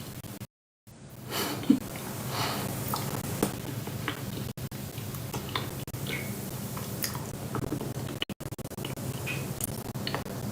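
Someone chewing close to the microphone: irregular soft mouth noises and small clicks over a low steady hum. The sound cuts out completely for a moment about half a second in.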